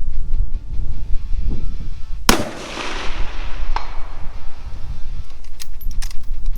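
A single rifle shot about two seconds in, a sharp crack that rings out in a long echo. A fainter crack follows about a second and a half later, over a steady low rumble.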